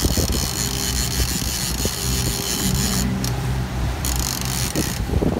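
Boat engine running steadily with a low hum, with wind noise and a few brief knocks.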